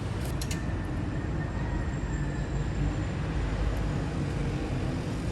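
Steady low rumble of vehicle noise, with a few sharp clicks about half a second in.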